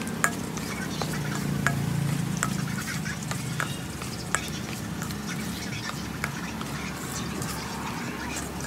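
A spoon stirring a thick batter of diced potato and flour in a stainless steel bowl, clinking and scraping against the metal in scattered clicks, over a low background hum.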